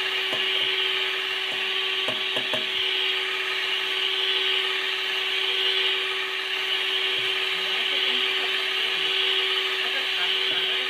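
Electric mixer running steadily, a constant motor whine under the hiss of beaters whisking cake batter, with a few light knocks about two seconds in.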